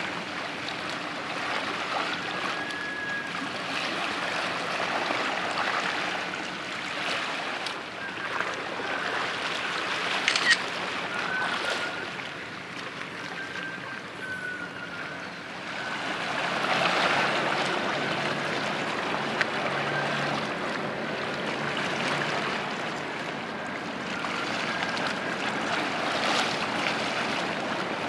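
Harbour water lapping and sloshing, with wind on the microphone, rising and falling slowly. A single sharp click sounds about ten seconds in.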